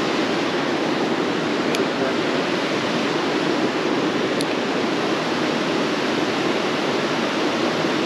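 Mountain trout stream rushing over small cascades and riffles into a pool: a steady, even wash of moving water.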